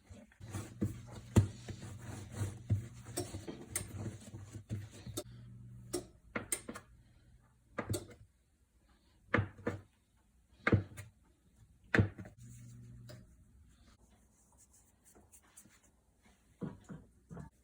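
Kitchen food-preparation handling sounds: a series of sharp knocks and taps, about one every second or two, with a low steady hum under the first five seconds and again briefly near the middle.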